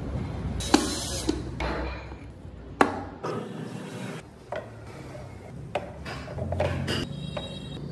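Wooden parts of a hand-carved model car clicking and knocking as they are handled, with a sharp click about a second in and another near three seconds in, then lighter knocks and rubbing.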